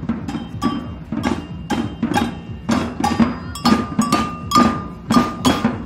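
A street drum band with large strapped drums beaten with sticks, playing a marching rhythm of sharp strikes about two a second. Some strikes ring briefly with a metallic tone.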